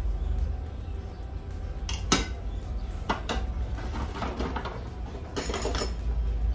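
Kitchen utensils clinking and knocking as spices are spooned into a steel pressure cooker and the jar and spoon are set down on the counter. There are single sharp clicks about two seconds in and again around three seconds, then a quick run of clinks near the end.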